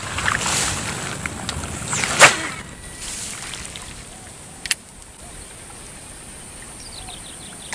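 A lure is cast with a baitcasting rod and reel, and a brief loud swish of the cast comes about two seconds in over steady outdoor noise. After that the surroundings are quieter, with a single click near the middle.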